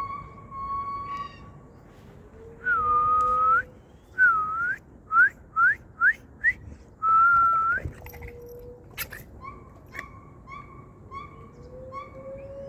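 Loud pure-toned whistled calls from an unidentified zoo animal: long held whistles ending in an upward flick, then a run of short upswept whistles that come quicker and rise higher, another long whistle, and then a steady series of short notes about one and a half a second.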